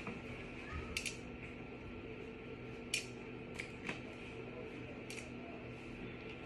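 A few faint, sharp metallic clicks and clinks from handling the hamper's steel frame, bolts and cordless drill. The drill motor does not run.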